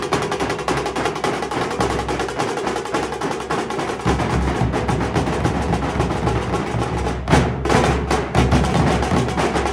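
Dhol drums played as a group in a fast, dense rhythm of sharp strokes, the deep bass strokes growing heavier about four seconds in, with a strong accent stroke about seven seconds in.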